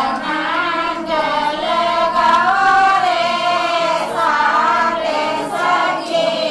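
A group of village women singing a local folk song together, in long drawn-out notes.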